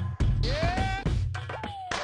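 Music for a dance routine, with a heavy bass beat. About half a second in, a pitched sound slides upward, and near the end another slides down.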